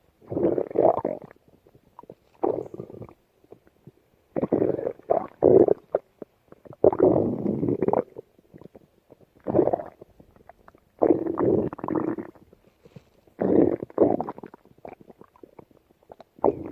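Stomach growling and gurgling in about eight irregular bursts, each up to about a second and a half long, with short quiet gaps between them.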